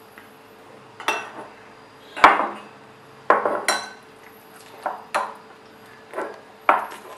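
Stainless steel potato masher worked up and down in a glass bowl of papaya and banana, its perforated metal plate knocking sharply against the glass about eight times, roughly once a second, while mashing the fruit.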